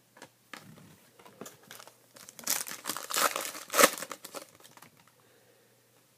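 Foil wrapper of a 2014 Topps Finest baseball card pack being torn open and crinkled by hand. Soft crackles come first, then a burst of loud crinkling and tearing from about two to four seconds in.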